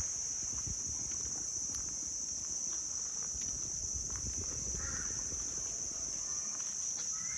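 Steady high-pitched insect chorus, with a few short bird calls about five seconds in and again near the end.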